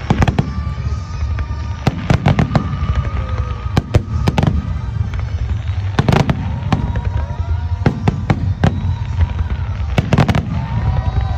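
Aerial fireworks shells bursting in clusters of sharp bangs about every one to two seconds, their echoes rumbling on between the reports.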